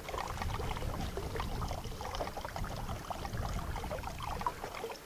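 Wind rumbling on the microphone, with rustling and scraping as a rubber lion mask with a fake-fur mane is handled and fitted right by it.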